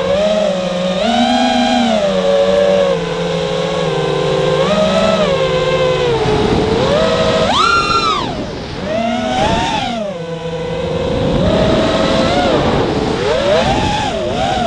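Multirotor drone's electric motors and propellers whining, rising and falling in pitch as the throttle changes, with a sharp high climb about eight seconds in.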